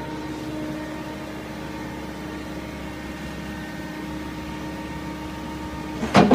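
Cat 315 wheeled excavator's diesel engine running steadily at idle, with a loud knock near the end.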